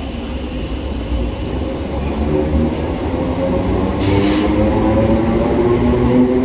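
ScotRail electric multiple unit pulling out of the platform, its traction motors whining up in pitch as it gathers speed, with the rumble of the wheels growing steadily louder. There is a short hiss about four seconds in.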